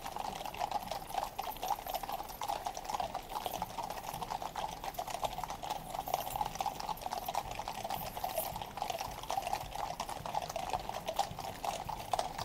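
Hooves of a column of cavalry horses clip-clopping irregularly on the road, over the steady murmur of a large crowd.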